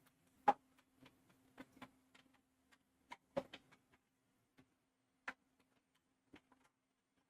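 Faint, irregular light clicks and taps, about a dozen of them, over a faint steady hum that stops near the end.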